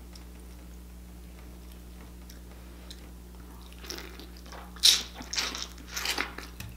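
Close-up biting and chewing of a sauce-covered piece of king crab. The bites start about four seconds in, and the loudest comes about a second later, followed by several smaller chews.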